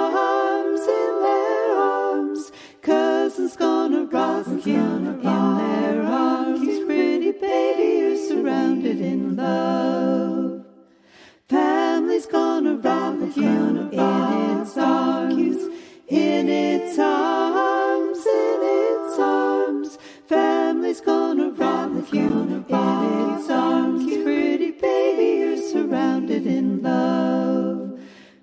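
Unaccompanied a cappella singing in phrases of a few seconds, with a brief pause about ten seconds in.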